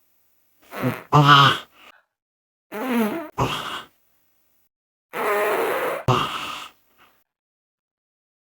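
Three fart sound effects in a row, each a wobbling buzzy burst of about a second made of two quick parts, with silence between them.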